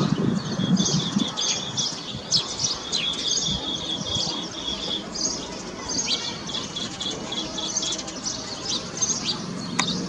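Green bee-eater calling: many short, high chirps, with a run of rapid trilled notes starting about three seconds in and another starting about six seconds in.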